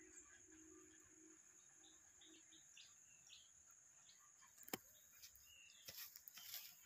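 Faint outdoor ambience: birds chirping now and then over a steady high-pitched tone, with one sharp click about two-thirds in and a few softer clicks and rustles near the end.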